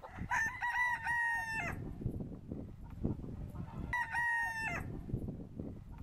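Pavlovskaya rooster crowing twice, a long crow about a second and a half and then a shorter one about halfway through, with irregular low thuds underneath.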